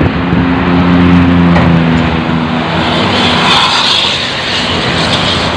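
Intercity coach bus passing at speed amid highway traffic. A steady engine drone comes with tyre and wind rush, and the rush swells into a loud hiss as the bus goes by about three and a half to four seconds in.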